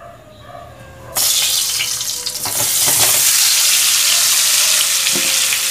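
Boiled potato pieces sizzling in hot oil in a kadai. The sizzle starts suddenly about a second in and keeps up loudly and steadily.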